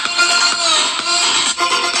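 Electronic music with a steady beat playing through a Huawei P30 smartphone's built-in loudspeaker, with little bass; a brief drop about a second and a half in.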